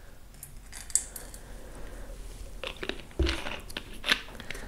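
Scattered small clicks and crackles of a plastic cap being screwed back onto a red wine vinegar bottle as it is handled, with a sharper click about a second in and a louder cluster a little after three seconds.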